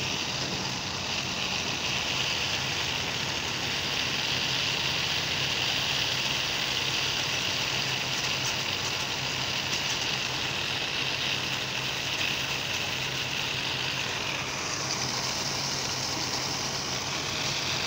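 Water tanker truck's engine idling steadily, with water from a gravity-fed overhead pipe rushing down through the top hatch into the tank; the rushing grows brighter near the end.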